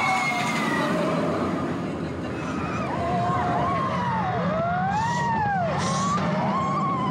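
Shambhala steel hyper coaster train running along its track with a steady low rumble, riders screaming over it, several cries at once rising and falling in pitch.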